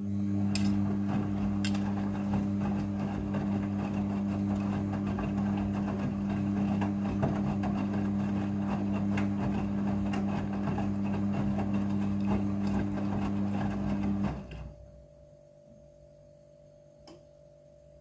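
Midea front-loading washing machine turning its drum with a wet load of clothes: a steady motor hum with water swishing and the clothes tumbling and knocking. It stops abruptly about 14 seconds in, leaving only a faint steady hum.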